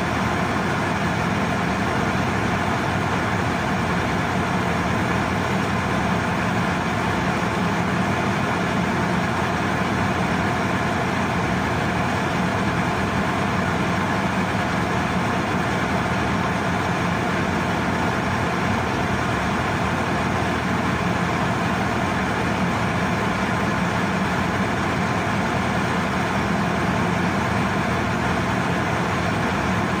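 Ship's engine room with the diesel engines running: one steady, unbroken machinery drone.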